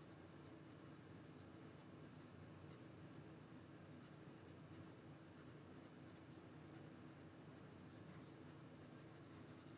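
Faint scratch of a fountain pen nib moving fast across notebook paper: the stiff, smooth nib of a Penbbs 500 in quick writing strokes.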